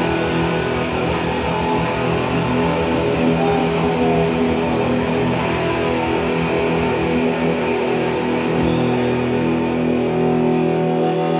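Rock band playing live: distorted electric guitar chords over a steady low-end pulse. About eight seconds in, the low end drops away and the guitar chord rings on, held.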